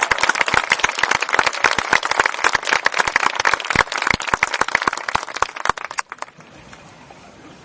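Audience applauding in a stadium with many irregular hand claps. The clapping thins out and stops about six seconds in, leaving only faint background noise.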